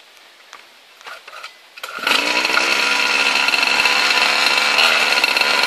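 Minibike's small two-stroke engine catching suddenly about two seconds in, after a few faint handling clicks, then running steadily at a high idle.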